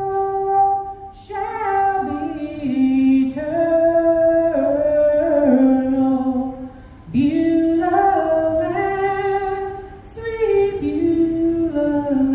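A woman singing a slow gospel song solo into a handheld microphone, holding long notes with short breaks for breath about a second in, around seven seconds in and around ten seconds in.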